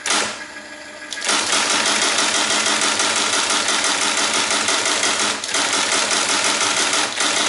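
Teletype Model 19 tape punch running steadily, a fast, even mechanical rattle that starts about a second in as the tape feeds out.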